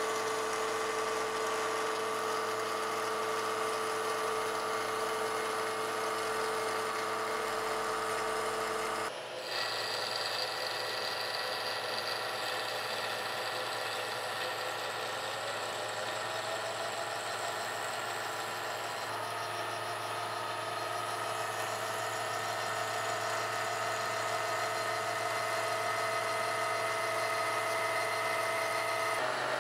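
Milling machine taking a cut along a leg of steel angle iron, the cutter and vibrating work ringing with a steady mix of held pitches typical of chatter. The pitch changes abruptly about nine seconds in and again around nineteen seconds.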